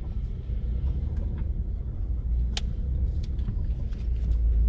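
Moving car, a steady low rumble of engine and road noise, with a few light clicks and one sharper click about halfway through.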